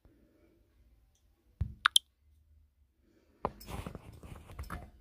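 Handling noise: a dull knock followed by two quick, sharp clicks, then about a second and a half of rustling and scraping as the phone is moved about.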